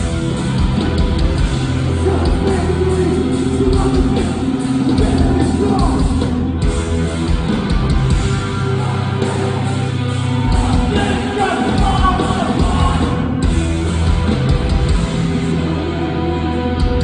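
Hardcore punk band playing live and loud, with distorted guitars and drums under shouted vocals.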